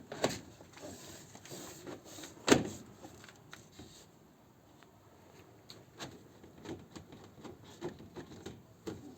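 Scattered clicks, knocks and rattles of siding panels being handled and fitted, with one sharp loud knock about two and a half seconds in.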